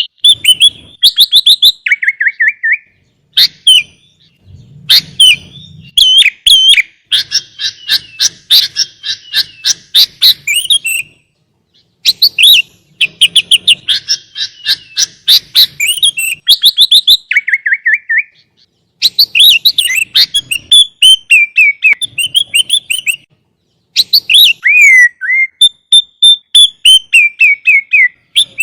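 Sooty-headed bulbul (kutilang) singing a long, loud chattering song: rapid runs of chirps and quick trills that slide between high and mid pitch, in phrases of several seconds broken by brief pauses a few times.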